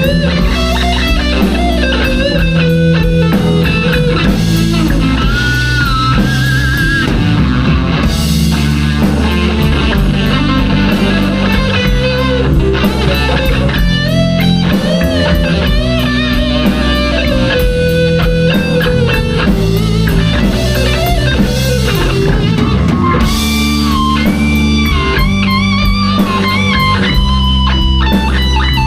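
Live rock band playing, with electric guitar to the fore over bass and drum kit.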